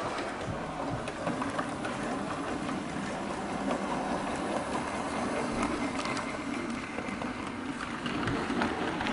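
Model train running on a layout: the small electric motor gives a steady hum, with faint clicks from the wheels over the track.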